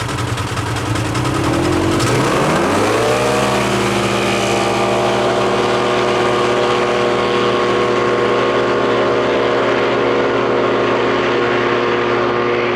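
Side-by-side UTV engine launching in a drag race. About two seconds in its pitch dips, then climbs sharply to high revs. It then holds one steady high pitch at full throttle, with the engine speed kept constant by the CVT.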